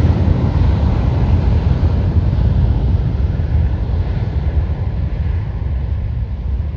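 Widebody cargo jet's engines at takeoff thrust during the takeoff roll: a steady low rumble that slowly fades and loses its upper hiss as the plane moves away down the runway.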